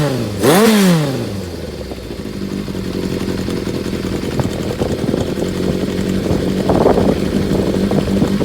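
Motorcycle engine breathing through a vintage Yoshimura machine-bent collector exhaust: one quick throttle blip about half a second in that falls straight back, then a steady idle.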